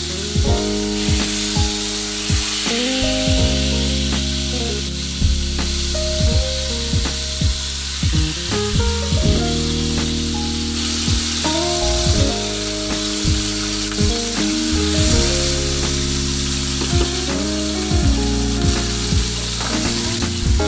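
Yellowfin tuna steak sizzling as it fries in butter sauce in a pan, a steady hiss, under background music with a steady beat.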